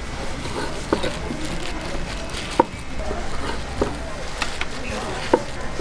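Knife slicing sundae (Korean blood sausage) on a wooden cutting board: several irregular knocks of the blade striking the board, over steady low background noise.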